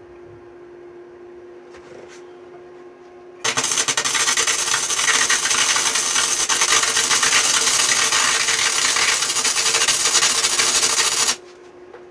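Century FC90 flux-core wire welder laying a test bead: the arc starts abruptly about three seconds in and crackles loudly and steadily for about eight seconds, then stops suddenly. Before and after the bead a steady hum runs.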